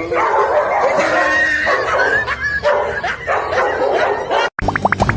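A dog whining and yipping in a run of high, wavering cries that cuts off suddenly about four and a half seconds in.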